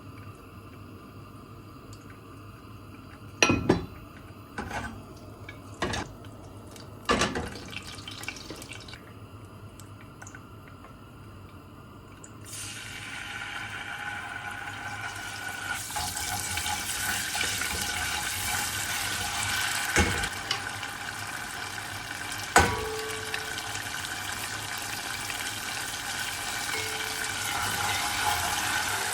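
A few knocks of dishes or utensils, then water from a kitchen tap starts running steadily into a sink about twelve seconds in, with two more knocks while it runs.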